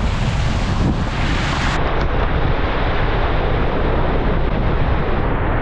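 Ford Bronco Sport's tyres ploughing through a muddy puddle, throwing up mud spray, under a steady rush of wind buffeting the outside-mounted microphone.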